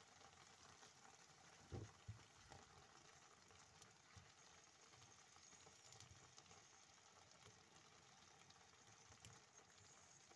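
Faint simmering of a thick chickpea and potato stew in a pot, with a few soft low plops of bubbles bursting, the loudest two about two seconds in.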